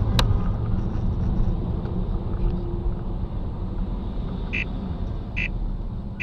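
Car driving, heard as a steady low road and engine rumble, with a sharp click just after the start. In the last couple of seconds, short high beeps come about every 0.8 s.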